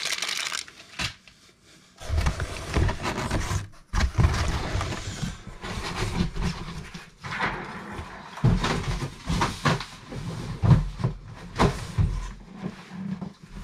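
Cardboard box and plastic packaging being handled: irregular rustling with short knocks and bumps, briefly quiet about a second in.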